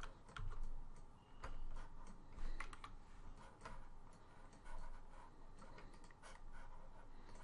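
Faint, irregular computer keyboard keystrokes and mouse clicks.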